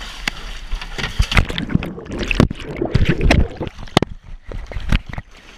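Water splashing and sloshing around a capsized Mirror dinghy, with a rapid string of sharp knocks and bumps against its wooden hull as it lies on its side in the sea.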